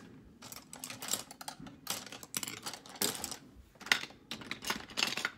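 Irregular light clicks and rustles of close handling, several a second.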